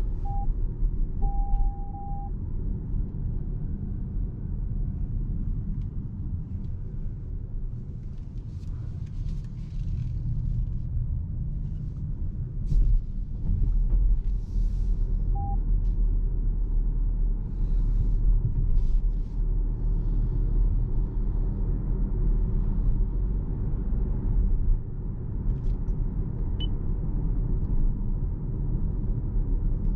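Steady low road and tyre rumble heard inside the cabin of a moving 2026 Toyota RAV4 hybrid. A few short electronic beeps sound: one at the very start, a longer one about a second in, and another about halfway through.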